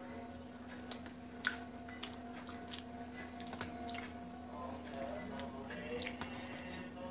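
Soft, squishy handling of food by hand: fingers tearing soft pav bread and pressing soft minced-meat tunde kebabs against a steel plate, with light chewing and a few small clicks.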